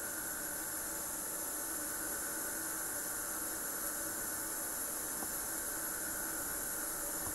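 Steady, even hiss of the recording's background noise, with no programme sound.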